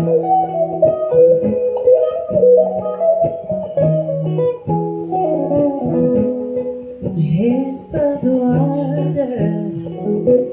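Guitar music: picked notes over held low notes, an instrumental passage between sung verses.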